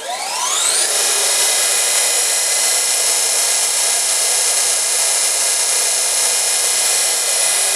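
High-speed 17,500 RPM internal grinding spindle of a Heald 271 Gage-Matic grinder spinning up, its whine rising in pitch over about the first second. It then runs at a steady, high-pitched whine with an airy hiss.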